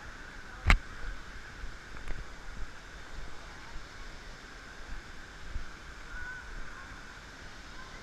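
Footsteps and camera handling while walking down a forest trail: scattered bumps and scuffs over a steady hiss, with one sharp knock about a second in.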